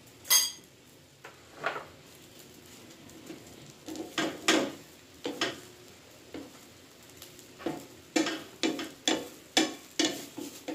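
A spatula scraping and tapping on a nonstick frying pan as a thin egg omelette cooks, over a faint steady sizzle. It opens with one sharp ringing strike on the pan, then a series of short scrapes that come faster, about two a second, near the end.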